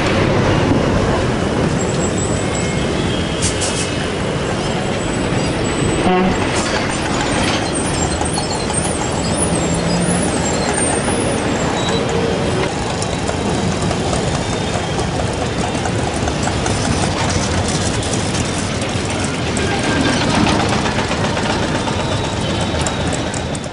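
Dense city road traffic: buses, auto-rickshaws and motorbikes running past in a steady, loud din, with horns sounding now and then.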